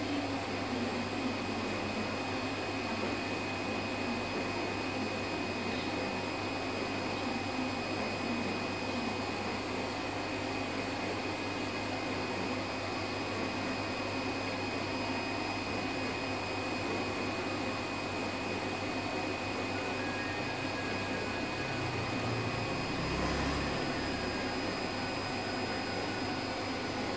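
Electric motor of a board and leather cutting machine running steadily, a constant hum with a thin high whine over it. A brief low rumble comes in near the end.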